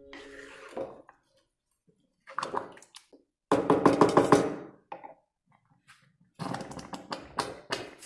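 Wooden spoon stirring a thick chicken filling in an aluminium pot, scraping and knocking against the pot in three short bursts with silent gaps between; the loudest burst, a second or so long, comes in the middle.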